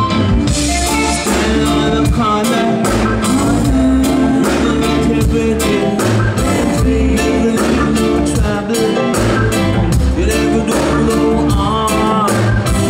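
Live reggae band playing, with a lead vocalist singing over bass and a steady percussion beat.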